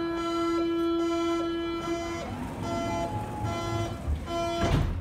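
Door-closing warning signal of a BVG IK18 U-Bahn train: a long steady electronic tone, then three short beeps at the same pitch. The doors shut with a thud near the end.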